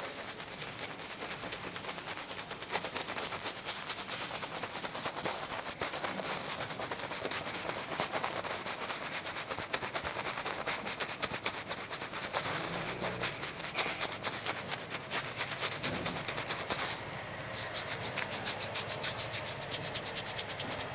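A shaving brush working up lather in rapid, scratchy brushing strokes, as for a wet shave.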